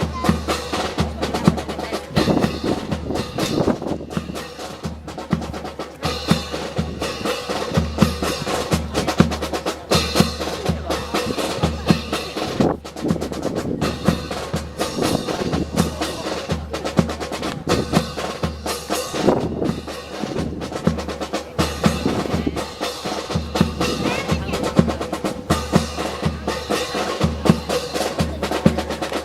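Marching snare and bass drums playing a steady cadence, with many sharp wooden-sounding clacks mixed in.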